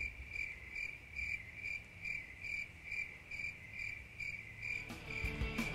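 A cricket chirping steadily, one short chirp about two and a half times a second, over a low hum. Music comes in near the end.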